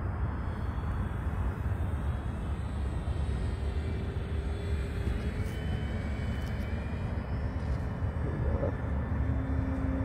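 Electric RC aerobatic biplane (FMS Pitts Special 1400 V2) making a low, slow pass. Its faint propeller hum drops in pitch about eight and a half seconds in as it goes by, under a steady low rumble of wind noise on the microphone.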